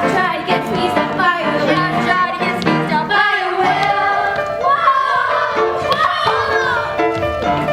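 Music: voices singing a melody that bends and glides over held instrumental accompaniment.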